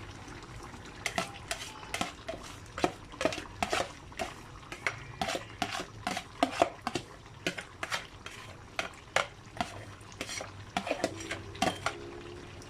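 A cooking spoon knocking and scraping against a pot as a dish is stirred, in a run of irregular clicks and clinks, two or three a second.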